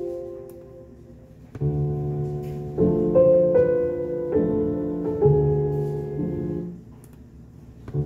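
Sampled piano-like keyboard chords played back through a Maschine Studio, slowed down. A chord fades at the start, and after a short gap a new run of sustained chords begins, changing about once a second before dying away near the end.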